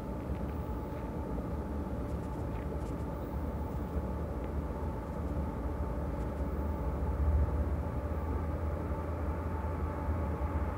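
Approaching Norfolk Southern diesel locomotive leading a freight train: a steady low rumble with a faint steady whine above it, growing a little louder in the second half.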